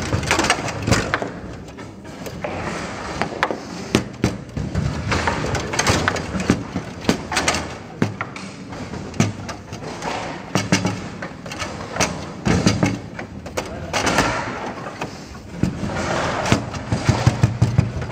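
Table football (foosball) in fast play: irregular sharp clacks and knocks as the ball is struck by the player figures and the rods bang against the table, several to the second at times.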